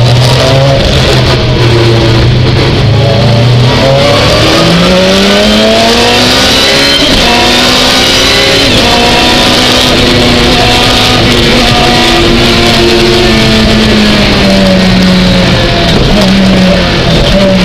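Lotus Exige GT3 race car engine heard from inside the cockpit. Its pitch climbs over a few seconds, holds steady for a long stretch, then eases off near the end, over a constant rush of rain spray and tyre noise.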